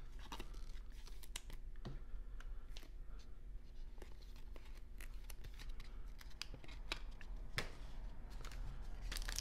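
Light handling of trading cards and a rigid plastic card holder: scattered soft rustles and small clicks, two of them sharper, about two seconds in and near the end.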